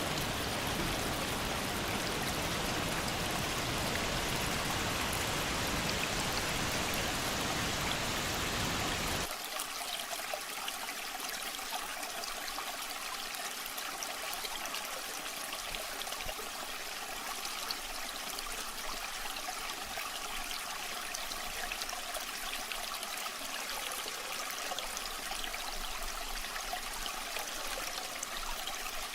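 Waterfall water rushing steadily. About nine seconds in it cuts abruptly to a lighter, quieter flow of water without the low rumble, with fine splashing ticks.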